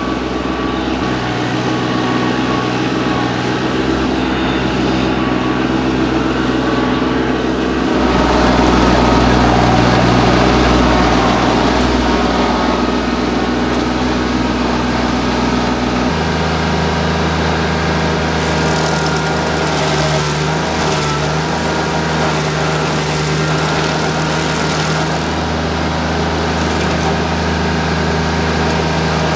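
Diesel engine of a TYM compact tractor running steadily, driving a Woodland Mills WG24 PTO stump grinder whose spinning cutter wheel grinds into a stump and dirt. The sound gets louder and rougher for a few seconds about eight seconds in, then changes abruptly about halfway through.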